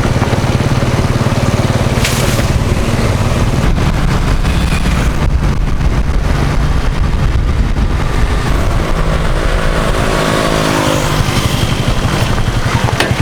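A motor vehicle's engine running steadily, loud and close. Around two-thirds of the way through, a second pitched engine tone comes in and dips slightly in pitch.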